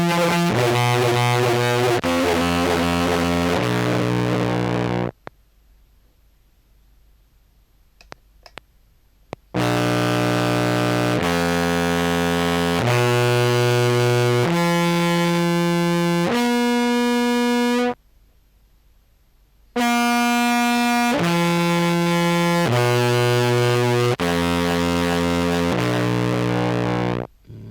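Contrabass clarinet played through fuzz pedals, heavily distorted. It plays three phrases of held notes, each note lasting a second or two and stepping from pitch to pitch, with a pause of a few seconds between phrases.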